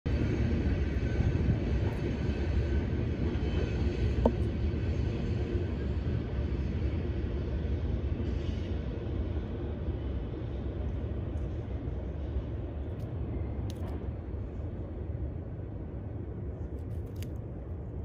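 Steady low outdoor rumble, easing slightly over time, with a brief faint tone about four seconds in and a few faint ticks near the end.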